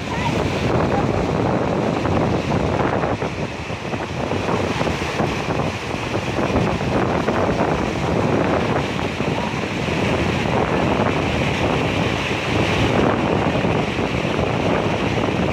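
Muddy floodwater of a river in spate rushing past, a steady, even noise, with wind buffeting the microphone.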